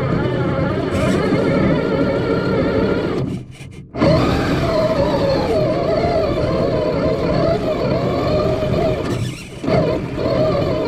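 FPV drone motors and propellers whining, the pitch sliding up and down with the throttle; the sound drops away abruptly about three seconds in and again near the end, then surges back as the throttle is punched.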